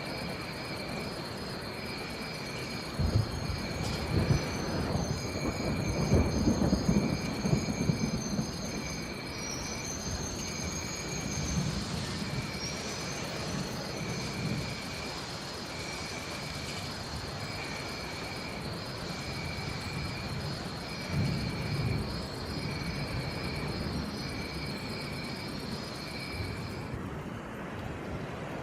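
Steady rain with thunder rumbling, a long roll about three seconds in and a shorter one past the three-quarter mark. Over it run a continuous high pulsing trill and a high chirp repeating about every second and a half, with a few high whistling calls in the first third; the trill and chirp stop shortly before the end.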